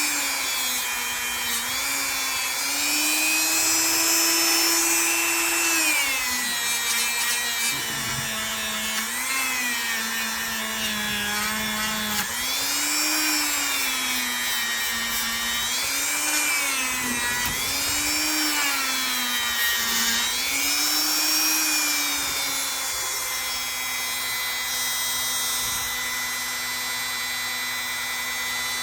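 Small electric power tool's motor running as it works a pocket-knife blade, its pitch repeatedly sagging and recovering as the tool is pressed on and eased off. It runs at a steady, unloaded pitch for the last few seconds.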